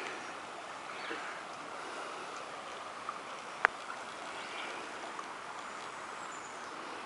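Shallow creek running over rocks, a steady rushing wash of water. A single sharp click about three and a half seconds in.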